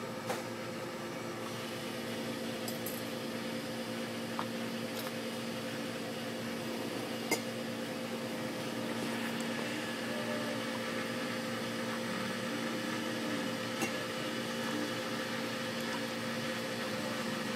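A steady machine hum with two low steady tones under a hiss, broken by a few sharp single clicks, the strongest about seven seconds in, as glassware is handled.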